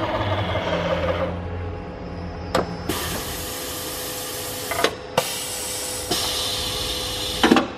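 Compressed air hissing on plastics machinery in two blasts of about two seconds each, with sharp clicks as they start and stop, over a steady machine hum. A lower hum dies away in the first two seconds.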